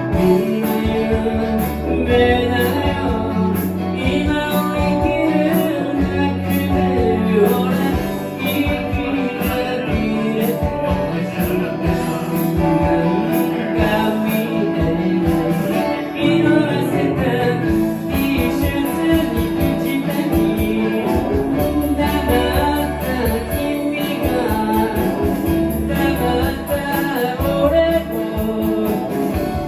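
Live band playing a pop ballad with a singer, guitar, bass and a steady beat.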